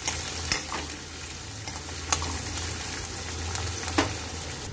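Chopped onions sizzling in hot oil in an iron kadai, frying in the first minute after going into the pan, with a few sharp clicks of a steel ladle against the pan as they are stirred.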